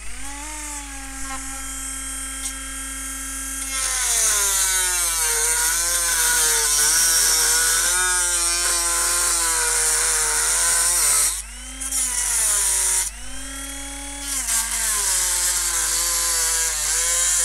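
Dremel rotary tool with a cut-off disc spinning at speed, then cutting into the plastic case of a plug-top power supply. Once the disc bites, about four seconds in, a harsh hiss of the cut joins the motor whine and the motor's pitch sags and wavers under load. The cut eases off briefly about eleven seconds in and then resumes.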